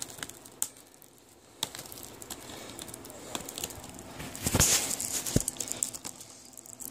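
Plastic shrink-wrap being torn off a Blu-ray case: crinkling plastic with scattered clicks and taps from handling the case, loudest about four and a half seconds in.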